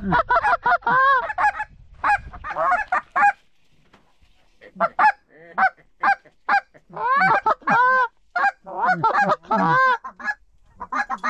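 Canada geese honking and clucking in quick runs of loud calls, with a short lull a few seconds in before the calling picks up again.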